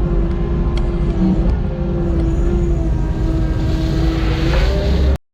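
Heavy earthmoving machine's diesel engine running steadily with a whine, its pitch rising about four and a half seconds in, then cutting off suddenly.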